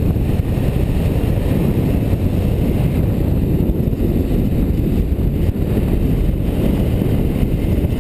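Wind rushing over a motorcycle-mounted action camera's microphone at road speed, a steady low rumble with the bike's running noise underneath.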